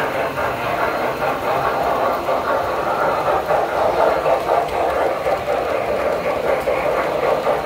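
Standard-gauge tinplate toy train, a steam locomotive pulling passenger cars, running past on the layout's track: a steady rumble and clatter of wheels on the rails.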